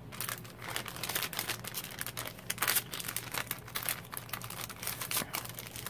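Clear cellophane packaging crinkling as hands handle it: a dense run of irregular crackles.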